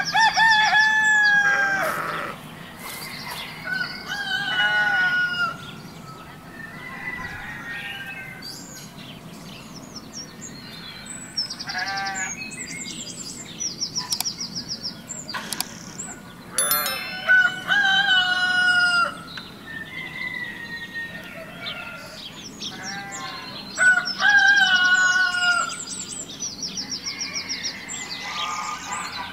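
Roosters crowing several times, each crow about two seconds long, with small birds chirping quickly and repeatedly between the crows.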